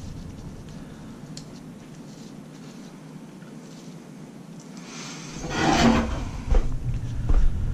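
Faint small metal clicks of a nut being threaded by gloved hands onto the clutch shaft of an 80cc two-stroke bicycle engine. About five seconds in, a louder burst of rustling and a few short knocks as the person turns and moves away from the bench.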